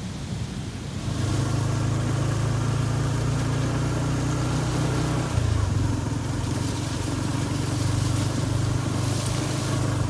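Motorcycle engine running steadily while riding, picking up about a second in and holding an even note, with wind noise over the microphone.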